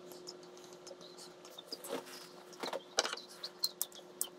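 Faint handling noise: scattered small clicks and rustles, growing busier over the last couple of seconds, over a steady low electrical hum.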